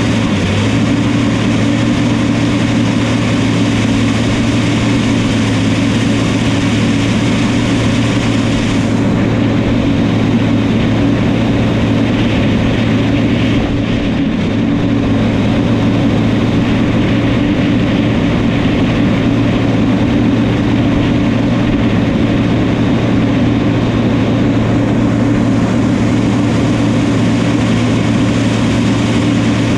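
New Holland crawler dozer's diesel engine running steadily, with a constant low hum.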